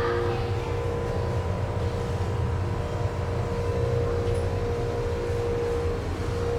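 Steady low drone of the car ferry's engines and machinery, heard inside the passenger deck: a constant rumble with a steady hum on top.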